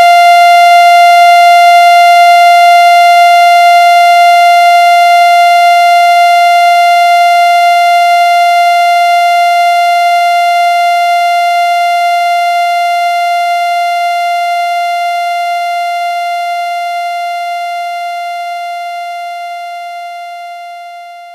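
Steady electronic test tone of the kind played with colour bars: one unchanging pitch with a buzzy stack of overtones. It fades out slowly and is almost gone near the end.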